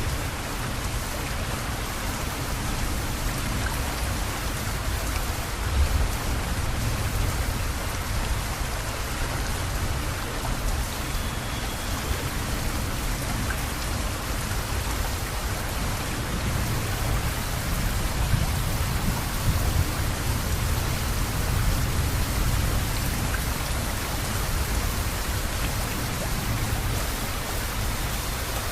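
Steady rain falling, with a low rumble of thunder underneath that swells several times.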